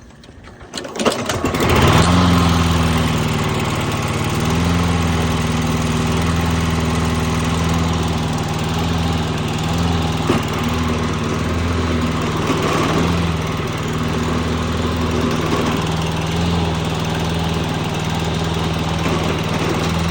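Toro Recycler push lawn mower's small engine starting about a second in and running, its speed rising and falling a little. This is surging, which the owner takes as a sign that the carburettor needs cleaning.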